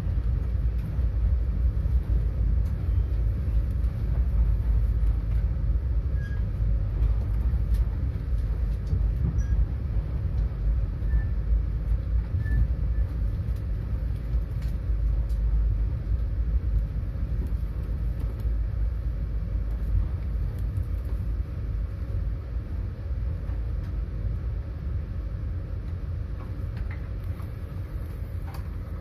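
Passenger train running, heard from inside the carriage: a steady low rumble of the train on the rails, easing off somewhat over the last few seconds.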